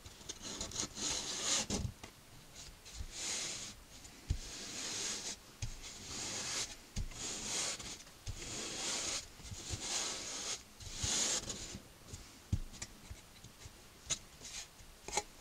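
Palms rubbing and smoothing muslin grille cloth down onto a glued accordion grille: a run of swishing strokes, each under a second, with a few light knocks against the wooden frame. The strokes die away about twelve seconds in, leaving a few faint ticks.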